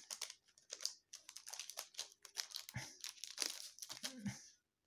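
Paper and plastic packaging crinkling and rustling as it is handled while unboxing a doll, with a couple of soft knocks.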